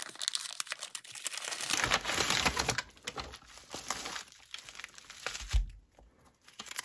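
Paper mailer being peeled open and bubble wrap and a plastic sleeve crinkling as the contents are unwrapped by hand: a dense run of small crackles, loudest about two seconds in, with a dull thud near the end.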